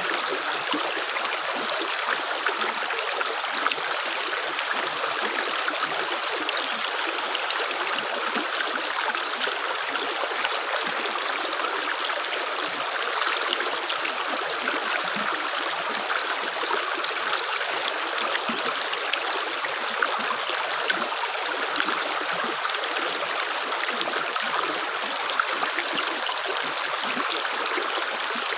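Water running steadily, a continuous stream-like trickle with fine crackling detail and no single drips standing out.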